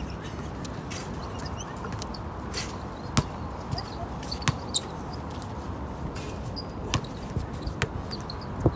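Basketball bouncing on a court: a handful of sharp, irregular thuds over steady background noise, the loudest about three seconds in and again near the end.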